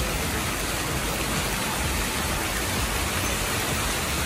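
Steady rush of water streaming down a water slide's flume and splashing out into the run-out.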